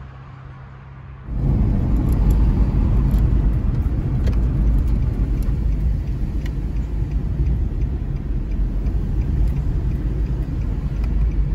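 Steady low rumble of a car driving on a road, heard from inside the cabin; it starts suddenly about a second in.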